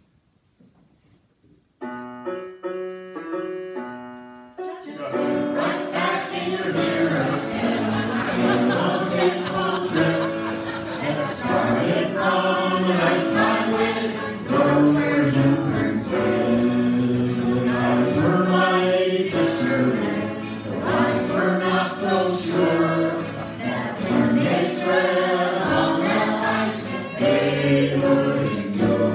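Near silence, then about two seconds in a short instrumental intro of held chords, and about five seconds in a group of men and women starts singing a song together with guitar accompaniment.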